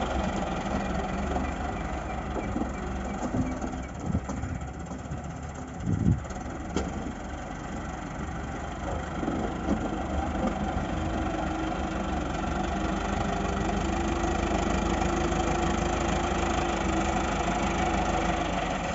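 Heavy earthmoving machinery engine running steadily, with a short knock about six seconds in.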